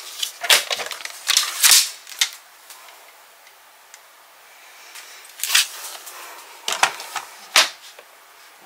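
Sharp clicks and taps of a paper trimmer and cardstock being handled on a craft desk, a cluster in the first two seconds and a few more between five and eight seconds in.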